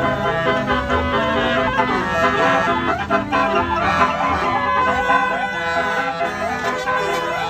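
Electric basuri musical vehicle horns playing tunes, several pitched notes sounding at once and stepping from note to note without a break.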